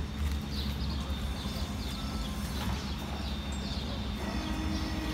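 Street ambience: a steady low rumble with small birds chirping over it, short falling chirps repeating every half second or so.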